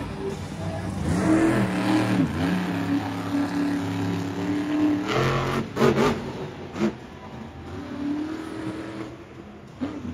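Monster truck engine revving hard, its pitch rising and falling, with a few short, sharp louder bursts around the middle.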